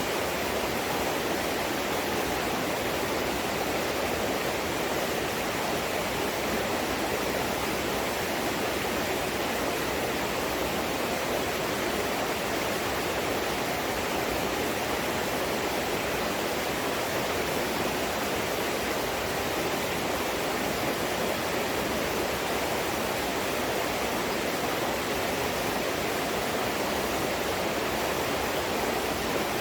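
Steady rushing of flowing stream water, even and unbroken throughout.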